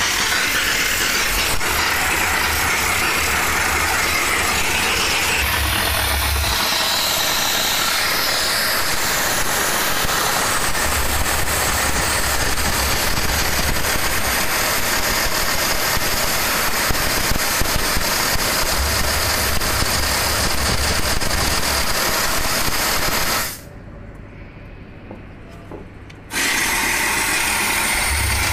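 Steam car-wash machine's spray gun hissing steadily as it blasts steam. The jet cuts off for about three seconds near the end, then starts again. Under it a low hum comes and goes every few seconds.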